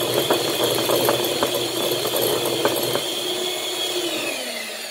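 Electric hand mixer running at medium speed, its beaters ticking and rattling in a bowl as they whip egg and sugar until foamy and pale. Near the end the motor is switched off and its whine falls in pitch as it winds down.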